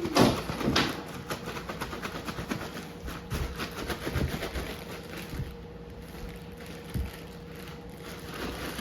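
Cereal rattling and a plastic zip bag rustling as the bag is shaken, busiest in the first few seconds, then a few soft knocks.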